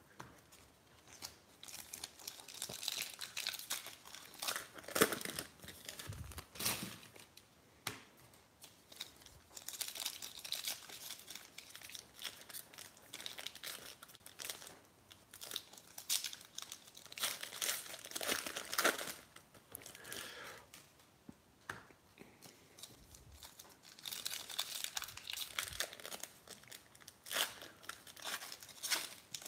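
Foil wrappers of 2018 Panini Diamond Kings baseball card packs being torn open and crinkled in the hands, alongside the cards being handled. The crackling comes in irregular spurts with short pauses between them.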